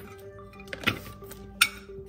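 Background music, with two sharp clinks of loose metal hoverboard parts being handled, about a second in and again near the end.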